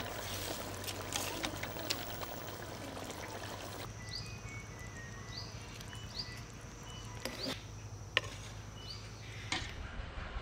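Hilsa fish curry bubbling and crackling as it simmers. About four seconds in this gives way to a quieter background with a short high chirp about once a second and a few sharp clicks.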